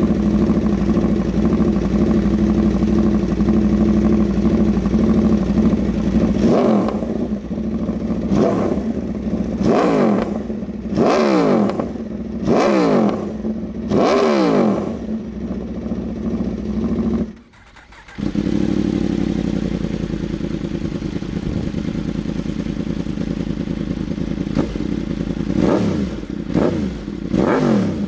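Aprilia RSV4 1100 Factory's V4 engine idling, then revved in about six quick blips that rise and fall. After a brief cut, a Yamaha R1's crossplane inline-four idles steadily and is revved twice near the end.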